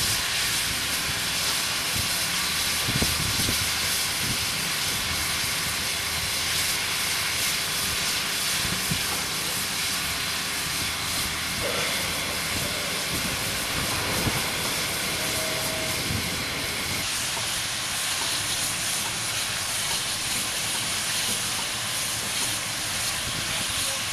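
Steady hiss of steam escaping from standing QJ-class steam locomotives, with a few faint low knocks.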